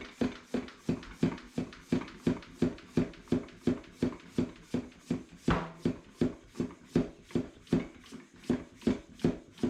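Floor pump worked fast into a tubeless mountain bike tire, valve core left in, to seat the beads. Each stroke gives a short hiss and squeak, in a quick, even rhythm of a little under three strokes a second. There is one sharper knock about halfway through.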